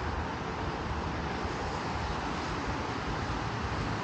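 Steady city street noise: an even hiss of road traffic with a low rumble underneath, with no single event standing out.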